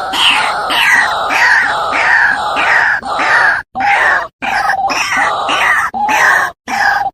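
White-breasted waterhen (ruak-ruak) calling: a harsh note repeated about twice a second, each sliding down in pitch, with a few abrupt cuts in the sound.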